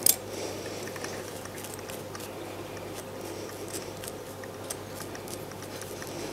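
Grooming scissors snipping and picking at a matted clump of golden retriever belly fur: a sharp click at the very start, then faint, scattered little snips and rustles of fur, over a low steady hum.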